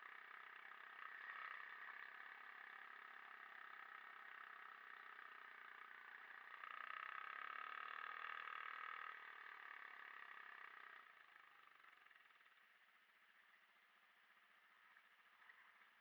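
Faint motorcycle engine running, swelling about seven seconds in and fading away after about eleven seconds.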